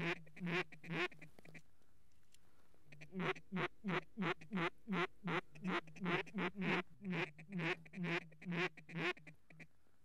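Duck quacks in a rapid, even series, about three a second, each note dropping in pitch. A short run comes first, then a pause, then a longer run of quacks that stops near the end.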